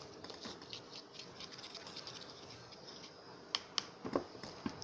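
Faint handling noise from homemade slime and its containers: light tapping and ticking, with a few sharper clicks in the last second and a half.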